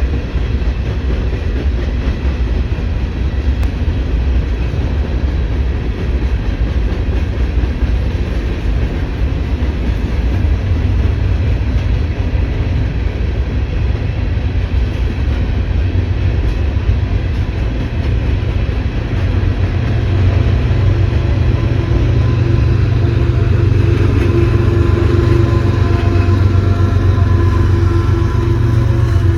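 Freight cars of a long mixed train rolling past, a steady rumble of wheels on rail. About twenty seconds in the rumble grows louder and deeper, with a steady hum building in near the end, as the trailing CP diesel locomotive draws near.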